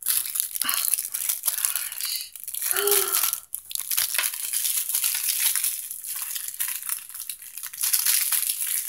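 Crinkly plastic and cellophane packaging being handled, a continuous crackling rustle.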